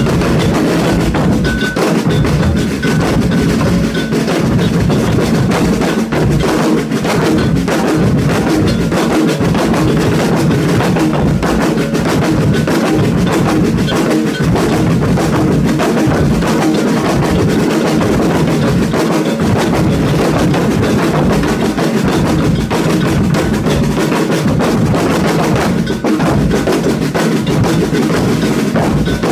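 Drum ensemble playing a dense, driving percussion rhythm without a break.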